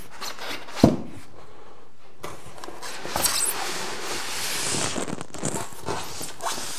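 Television packaging being worked loose by hand: a single knock a little under a second in, then a few seconds of scraping and rustling as the packing is pulled off.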